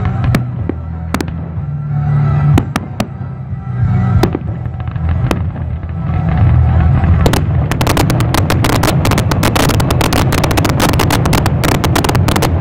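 Fireworks display: separate booms of aerial shells bursting, then from about seven seconds in a dense, rapid string of bangs as a barrage of comets fires up from the ground.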